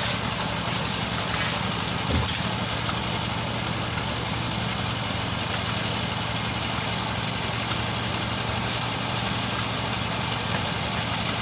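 An engine running steadily at idle, with one short knock about two seconds in.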